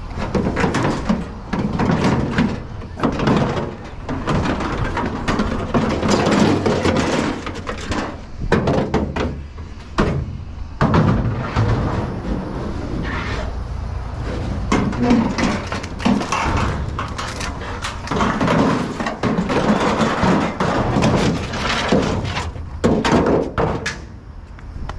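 Irregular clanks and bangs of metal scrap and equipment being handled, over a steady low rumble.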